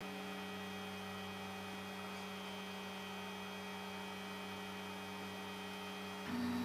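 Delta 3D printer's stepper motors humming steadily as the effector moves down toward the bed during an auto-calibration run. About six seconds in, the hum jumps to a louder, slightly higher tone.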